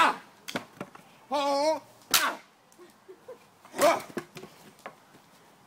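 A few short, sharp sounds a second or two apart, and a voice holding one brief note about a second and a half in.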